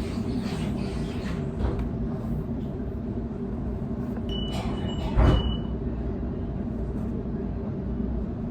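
Steady low rumble inside a moving train carriage. A single thump comes about five seconds in, with a brief thin high-pitched tone around it.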